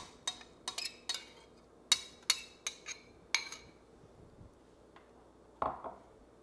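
Metal offset spatula scraping and clinking against a glass bowl as chocolate ganache is scraped out: a run of about ten sharp, ringing clinks over the first three and a half seconds. Near the end, a single duller knock as the glass bowl is set down on a wooden cutting board.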